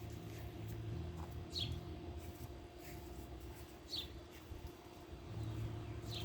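Steady hum of a running central air conditioning unit, with a bird repeating a short, sharp descending chirp about every two seconds.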